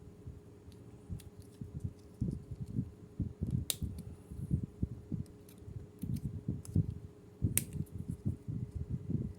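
Plastic toy army pieces and their packaging being handled: irregular soft thuds and knocks, with two sharp clicks about four seconds apart, over a faint steady hum.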